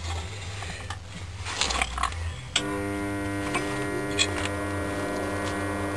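A steady electric buzz, a hum with many overtones, switches on abruptly about two and a half seconds in and holds level, over a low background hum with a few faint knocks before it.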